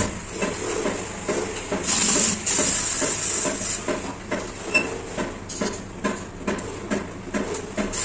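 Cordless drill driving screws to fix a shower-rail bar to the wall, running in uneven spurts with clicks and knocks.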